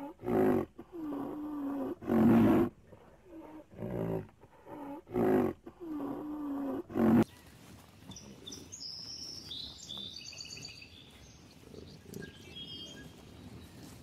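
Rhinoceros calling: a run of loud, drawn-out calls, each followed by a breathy huff, about one every second or two. The calls stop suddenly about seven seconds in, leaving a quiet outdoor background with small birds chirping.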